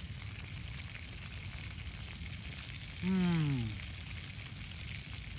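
Small fish frying in a pan over wood embers, a steady low sizzle and crackle. About three seconds in, a man's voice gives one short hum that falls in pitch.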